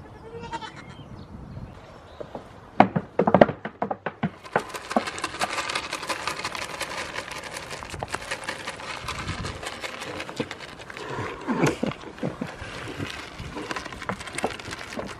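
Goats eating shelled pumpkin seeds off a table right at the microphone: a dense run of crunching and smacking that starts suddenly about four and a half seconds in, after a few loud knocks.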